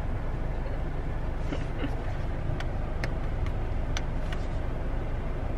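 Steady low rumble of a car running, heard from inside the cabin, with a short run of faint, evenly spaced ticks through the middle.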